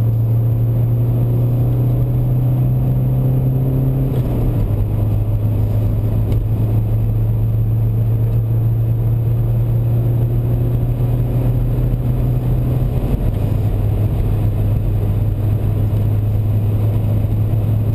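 BMW 123d's twin-turbo four-cylinder diesel pulling hard under full acceleration, heard from inside the cabin. The engine note climbs slowly and drops sharply twice, about four seconds in and again about thirteen seconds in, as it shifts up through the gears, with road and wind noise underneath.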